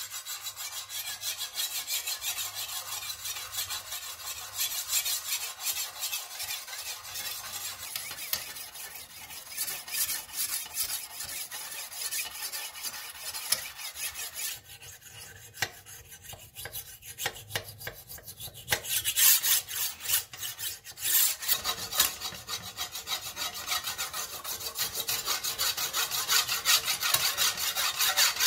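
Hand-held abrasive block scrubbed back and forth along a steel sword blade in rapid scratchy strokes, rust and grime being rubbed off the metal. The strokes ease off about halfway through, then come back louder.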